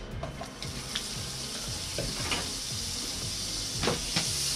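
Butter sizzling as it melts in a hot frying pan, a steady hiss that starts about half a second in, with a few light ticks and knocks as the pan is tilted on the burner.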